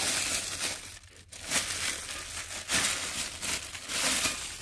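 Clear plastic wrapping crinkling and rustling as hands pull it off a plate, in several surges with a short lull about a second in.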